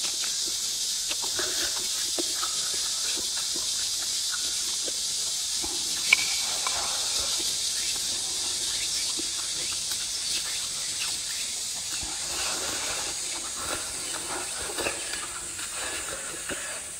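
Close-up chewing and lip-smacking of someone eating fried fish, with small wet clicks and one sharp click about six seconds in, over a steady high hiss.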